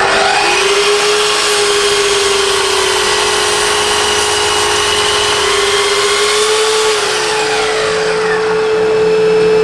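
Festool Kapex KS 120 sliding mitre saw with a 10-inch blade running and cutting through a block of timber, its motor pitch sagging slightly under load, then winding down from about seven seconds in. Underneath, a dust extractor runs with a steady drone.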